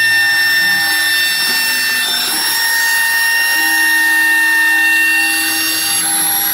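Homemade CNC router running: a steady high-pitched whine with several constant tones, and lower motor tones that shift to new pitches a few times as the machine moves.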